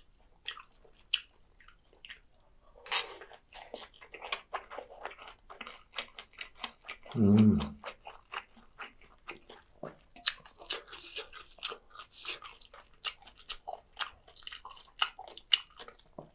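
Close-miked eating: a mouthful of seaweed rice ball bitten and chewed, with many short wet clicks and smacks of the mouth. About seven seconds in comes a brief low hum through closed lips.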